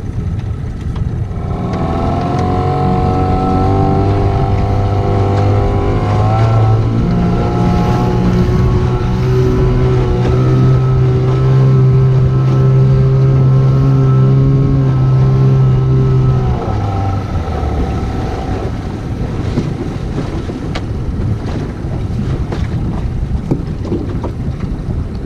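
Small boat's outboard motor running under way: it comes up over the first couple of seconds, steps up in pitch about six seconds in, holds steady, then drops away sharply about sixteen seconds in. Wind noise on the microphone and water noise fill the rest.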